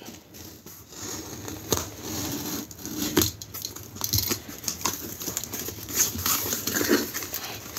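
A utility knife scraping and slitting the packing tape on a cardboard shipping box, then the cardboard flaps being pulled open with scraping, tearing and crinkling of paper packing, in irregular bursts.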